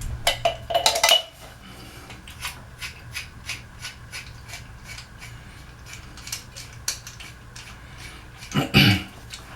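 Metal plumbing parts and hand tools clinking and clattering while being handled, with many light taps and a louder clatter near the start and again near the end.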